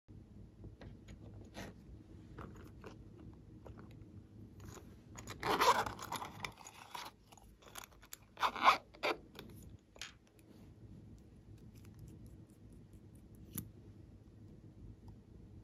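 Close-up handling of a plastic cosmetic case and a lip gloss tube: scraping and rustling, with a longer scrape a little past the middle, a few sharp louder sounds after it, and small clicks.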